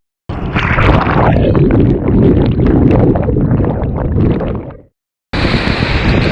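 Rushing waterfall water with wind buffeting the microphone. It cuts in just after the start, fades out near the five-second mark, and resumes abruptly after a brief silence.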